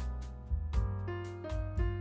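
Instrumental background music with a steady beat and a prominent bass line.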